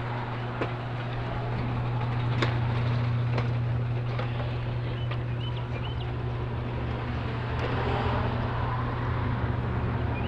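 Electric garage door opener running as the door closes: a steady motor hum with scattered clicks and rattles from the door travelling down its track.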